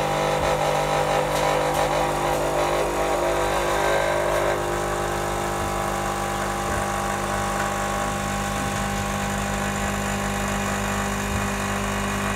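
La Cimbali Junior espresso machine's pump running with a steady hum while pulling an espresso shot. The hum eases slightly about four and a half seconds in.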